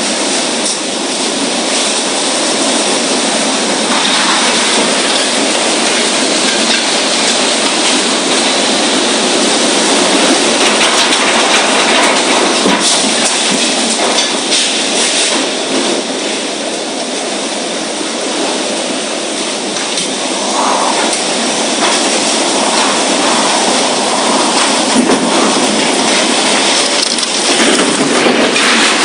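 Strong wind blowing hard and without a break, a loud even rushing noise that swells and eases a little.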